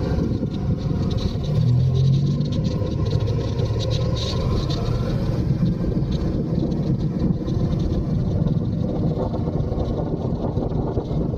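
Touring motorcycle riding at road speed: steady engine running under heavy wind rush on the helmet-mounted microphone and tyre rumble on cobblestones, the engine note swelling briefly about two seconds in.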